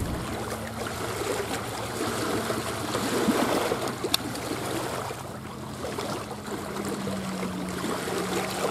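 Small lake waves lapping and splashing against a rocky shore, with a faint steady low hum underneath and a single click about four seconds in.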